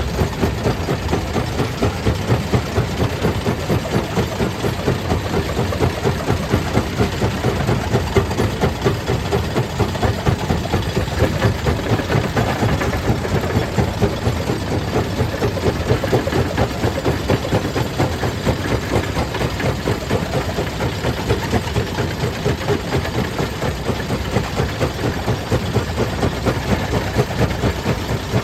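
Stone crusher machinery running steadily: a heavy, engine-like drone with a regular pulsing beat.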